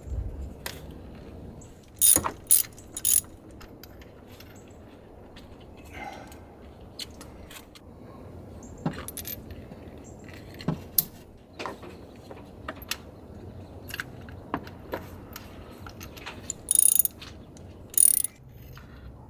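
Hand tools and a socket ratchet clicking and clinking while ignition coils and their bolts are removed and refitted. Scattered sharp clicks throughout, with three loud clatters about two seconds in and two more near the end.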